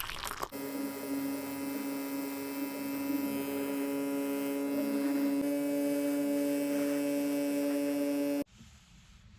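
A small electric motor running with a steady hum and hiss, cutting off abruptly near the end.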